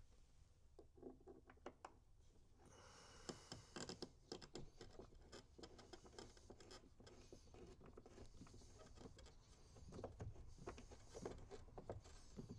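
Faint scraping, scratching and light clicking of hand work as a storage cubby is worked into place and its bolt is fed into a T-nut, the small sounds growing busier after about three seconds.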